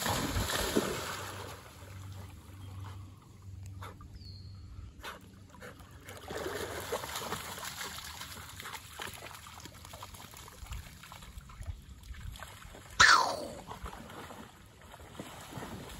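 Chesapeake Bay Retriever puppy splashing as it runs through shallow river water, then sloshing as it wades. About thirteen seconds in there is a sudden loud sound that drops quickly in pitch.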